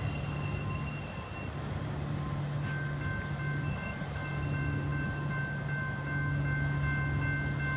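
Double-stack intermodal freight train rolling past and away, a steady low rumble of wheels on rail. About three seconds in, a few thin, steady high-pitched tones rise over the rumble and hold to the end.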